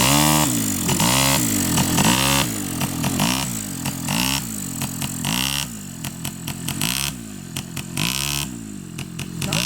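Small ATV engine revving up and falling back again and again, about once a second, as the throttle is pressed and let off while it is ridden.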